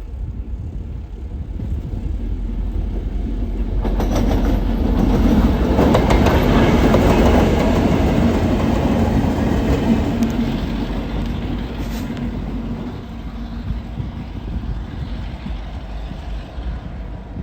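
Train passing close by: the rumble and clatter of wheels on the rails swell from about four seconds in, stay loudest for several seconds, then fade, with a couple of sharp clacks along the way.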